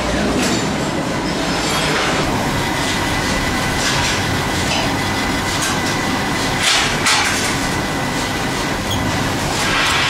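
Wire-stripping machine running: a steady mechanical rumble and hiss with a faint steady whine, broken several times by short, louder hisses.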